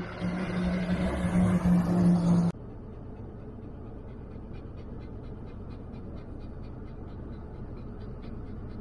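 A loaded semi-truck passing close by, its diesel engine droning loud and steady, cut off suddenly about two and a half seconds in. Then steady engine and road noise from inside a moving car, with a faint ticking about three or four times a second.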